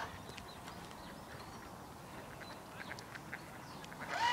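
The electric motor of a small radio-controlled model boat falls silent, leaving quiet outdoor background with a few faint short bird calls. About four seconds in, the motor starts again with a whine that rises in pitch and is the loudest sound.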